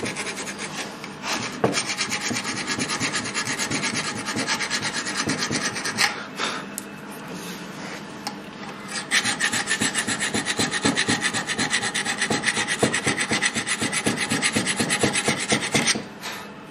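Hand file rasping back and forth in quick strokes on the rusty pad seats of a brake caliper carrier, cleaning off raised rust and metal that would make the gap too tight for the pads to sit in. It goes on in two loud spells with a lighter stretch in the middle, and stops shortly before the end.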